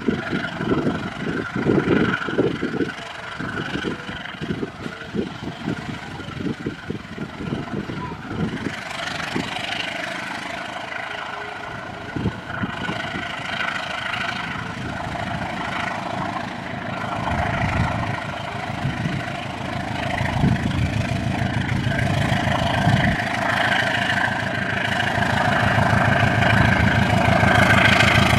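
Diesel locomotive engine running at a railway station, growing steadily louder over the last ten seconds as it comes closer, with a quick run of low knocks in the first few seconds.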